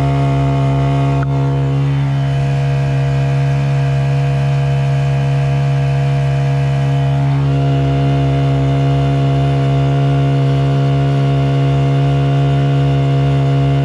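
Honda GX50 air-cooled four-stroke outboard engine running steadily under way, pushing the kayak along at speed, with a slight change in pitch about halfway through.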